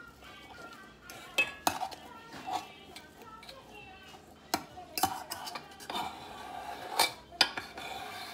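A metal spoon scraping and clinking against a small stainless steel bowl as it mashes soft pumpkin cheesecake, with a handful of sharp clinks.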